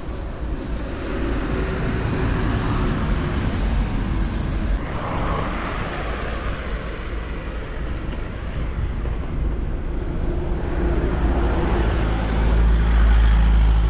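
Road traffic passing close by: a steady rush of motor vehicles, with a box truck going by near the end, its deep rumble the loudest part.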